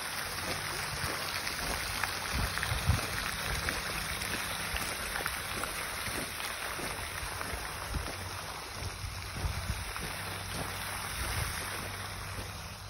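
Footsteps crunching on a gravel path, an irregular steady crackle with low thumps on the microphone.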